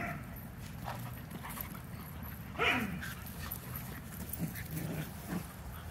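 Puppies at rough play: one gives a short, high cry that falls in pitch about two and a half seconds in, followed by a few softer whimpers near the end.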